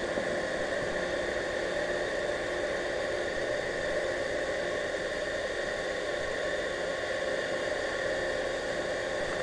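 Steady hiss with a constant low hum, recorded underwater, with no change, rhythm or bubble bursts.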